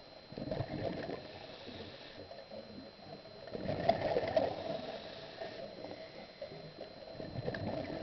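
Scuba diver's exhaled breath bubbling out of the regulator underwater: three gurgling bursts of bubbles, about three and a half seconds apart, the middle one loudest.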